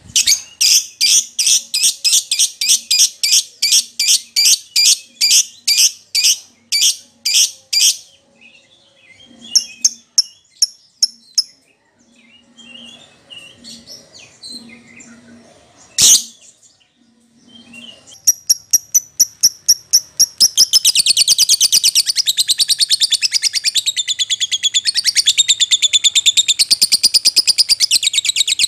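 Heated lovebird song: a run of loud, sharp chirps at two or three a second, then quieter scattered calls and a single sharp click, then from about two-thirds in a fast continuous chattering trill. This is the excited 'fighter' singing used to provoke other lovebirds into answering.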